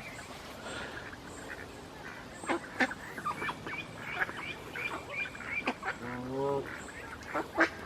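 Waterfowl calling, geese among them: a scatter of short high calls through the middle and one longer, bending honk about six seconds in.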